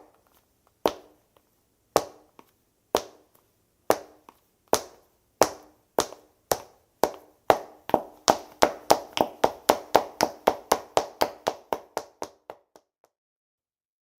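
Footsteps of hard-soled dress shoes on a hard floor: a slow walk of about one step a second that speeds up into a run of about four steps a second, then stops near the end. Each step is a sharp heel click.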